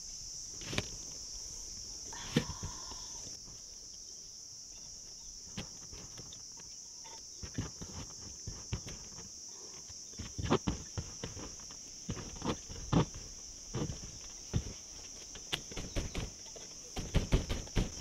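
Steady, high-pitched chorus of insects such as crickets, with scattered clicks and knocks that come more and more often over the last half.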